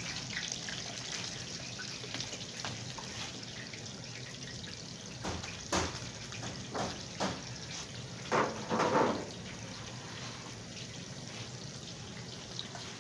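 Hot oil sizzling and bubbling hard in a large karahi as raw gulab jamun balls are slid in from a metal tray to deep-fry. Between about five and nine seconds in, a few sharp knocks and louder sputters break through the steady sizzle, as the metal tray works against the pan.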